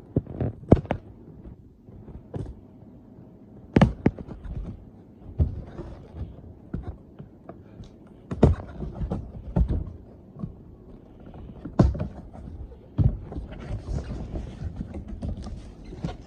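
A cardboard box being opened and its contents handled: irregular thumps and knocks, some loud, with stretches of packaging rustling.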